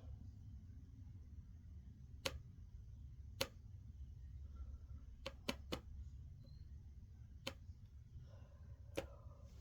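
A low steady hum with about seven sharp, scattered clicks, three of them in quick succession midway.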